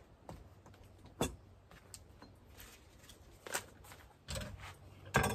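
A plastic packet of bacon being handled and opened, with a few scattered light clicks and knocks; a sharp click about a second in is the loudest.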